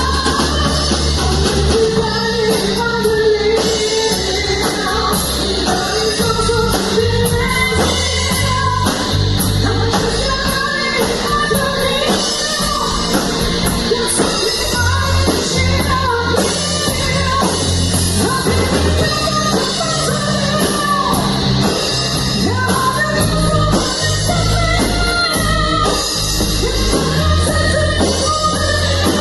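Rock song played by a full band, with a singer's voice over a steady drum beat and a moving bass line.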